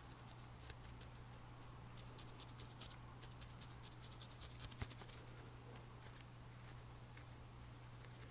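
Faint, quick scratchy clicks of a fine felting needle poking into wool fibres, thickest in the middle with one sharper click about five seconds in, over a steady low hum.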